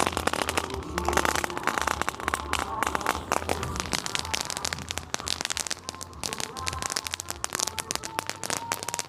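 Fireworks crackling: a dense, rapid run of small pops that keeps going throughout, thinning slightly in the second half.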